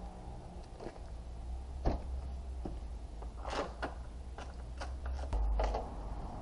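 A few sharp clicks and knocks from a hand tool and plastic fasteners being worked along the top of a Mini Cooper S front bumper, over a low steady rumble.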